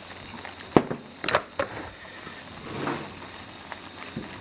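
Tableware clicking: three sharp clicks, like a fork or chopsticks knocking on the clay hotpot or a dish, in quick succession about a second in, then a softer rustle near the end.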